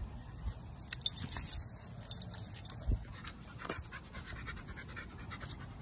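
A dog panting, with a few sharp clicks in between.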